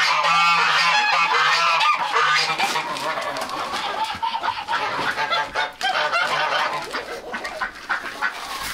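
A flock of geese honking, many calls overlapping, busiest in the first couple of seconds and thinning out toward the end.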